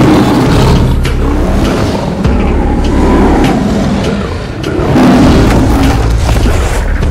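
Film sound effect of a lion roaring and snarling loudly, with rough swells at the start and again about five seconds in, over a low rumble.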